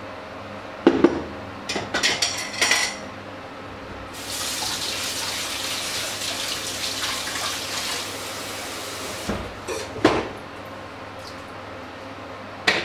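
Kitchen tap running into a metal sink for about five seconds, with knocks and clatter of dishes and a plastic jug being handled before and after.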